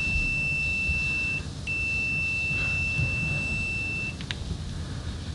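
Gardner Bender GDT-3200 multimeter's piezo continuity beeper sounding a steady high tone with the test probes shorted together. It drops out briefly about a second and a half in, resumes, then stops about four seconds in, with a light click just after. The beeper is really low, a weak piezo that is latched but keeps dropping out.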